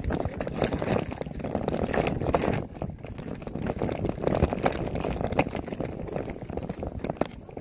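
Mountain bike rolling down a rocky dirt trail: tyres crunching over gravel and loose stones, with frequent sharp rattles and knocks as the bike bounces over rocks.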